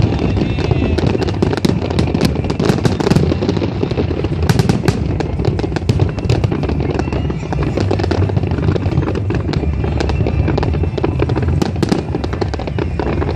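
Fireworks display: a dense, continuous barrage of aerial shell bursts, many sharp bangs and crackles over a steady rumble of booms.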